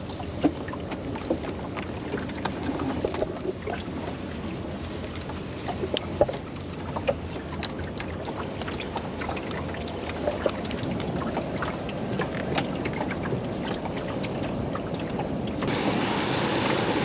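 Water rushing and lapping along the hull of a 15-foot wooden Welsford Navigator yawl under sail, with scattered small clicks and knocks from the boat's lines and fittings as the sheets are worked in the cleats. From about 16 s in the water noise turns brighter and hissier.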